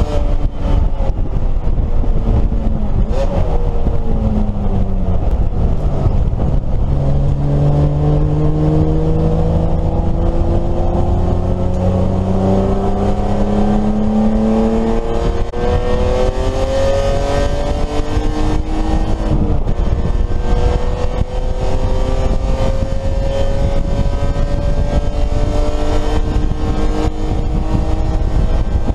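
BMW E30 race car's engine heard from inside the stripped cabin over loud road noise: the engine note drops early on, then climbs slowly and steadily under full throttle for several seconds, breaks for a gear change about halfway through, and climbs again in the next gear.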